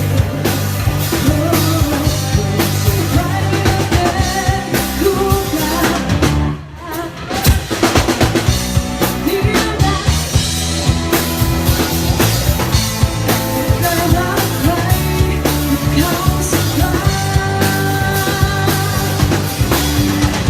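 Live band playing a Thai pop-rock ballad at a sound check, with drum kit, bass and a singer. The music drops away briefly about six and a half seconds in, then comes back in full.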